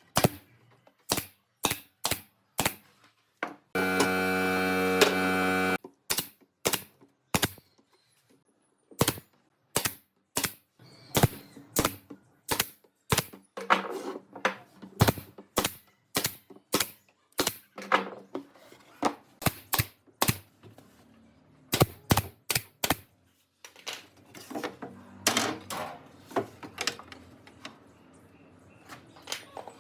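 Hammering on wood: a long series of sharp knocks at an uneven pace, about one or two a second. About four seconds in, a power tool's motor runs steadily for about two seconds.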